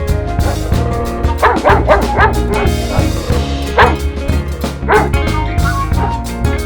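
Background music with a steady drum beat. Short yelping calls cut through it, several in quick succession about a second and a half in, then one near four seconds and one near five seconds.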